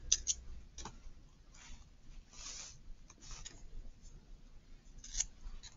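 Faint rustling and crinkling of small pieces of glossy magazine paper being handled and torn between the fingers, in short scattered bursts with a few light ticks.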